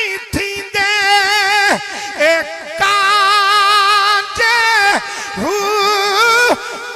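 A man singing a devotional verse into a microphone in long held notes with a wavering vibrato. Between the held notes his voice glides up and down in runs, with a few short breaks for breath.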